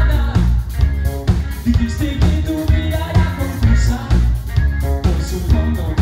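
Live rock band playing loud: a male singer over electric bass, guitar and a drum kit with a steady beat.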